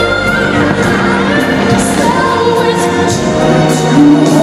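Loud music with a sung melody played over a stadium sound system, with a few faint firework bangs underneath.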